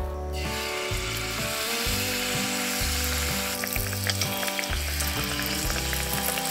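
Battered banana fritters sizzling as they deep-fry in hot oil. The sizzle comes in abruptly a moment in as batter meets the oil, with extra crackling in the second half. Soft background music plays underneath.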